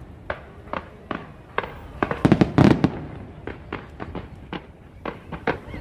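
Fireworks going off: a string of sharp bangs about two a second, with a dense cluster of louder bursts a little over two seconds in.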